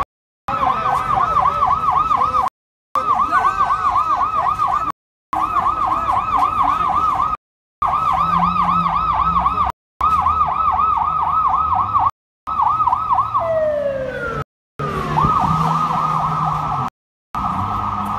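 Police vehicle siren wailing in a fast yelp, about seven rises and falls a second, with one long falling sweep near the thirteen-second mark before the yelp picks up again. The audio drops out for a split second every two to two and a half seconds.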